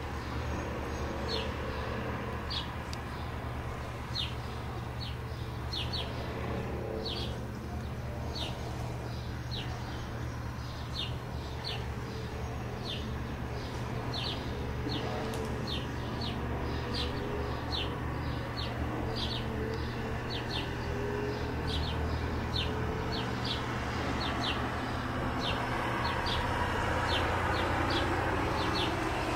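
Bombardier CL-415 water bomber's twin turboprop engines droning steadily overhead, growing louder near the end as the plane heads in. A bird repeats short, high, falling chirps about one to two times a second throughout.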